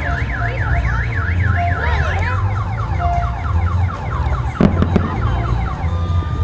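A car alarm cycling through its tones: a fast up-and-down warble, then from about two and a half seconds in, rapid repeated downward sweeps. A low throbbing runs underneath, and a single sharp pop comes about two-thirds of the way through.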